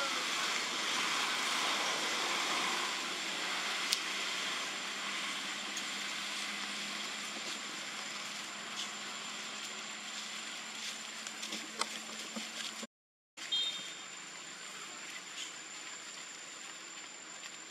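Steady outdoor background hiss with a constant high-pitched whine, slowly getting quieter, broken by a brief dropout to silence about 13 seconds in.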